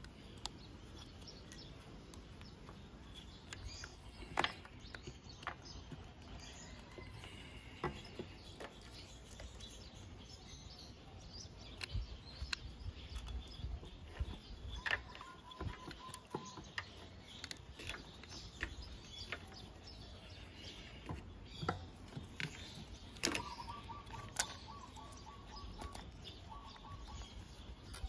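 Scattered faint clicks and knocks of metal parts and the wiring harness being handled as the stator is taken off a Honda Ruckus 50 scooter engine, with birds chirping now and then in the background.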